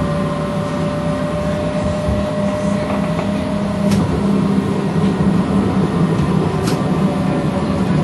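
Streetcar running, heard from inside the car: a steady low motor hum with wheel-on-rail rumble, a faint whine that fades out about halfway through, and two sharp clicks.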